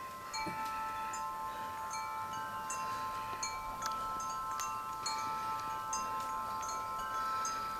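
Wind chimes ringing: the tubes are struck over and over, and several notes ring on underneath.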